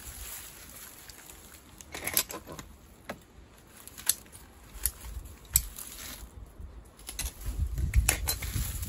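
Scissors snipping through onion leaves: a few sharp clicks about a second apart, amid rustling of dry onion leaves and plastic tying tape. A low rumble builds near the end.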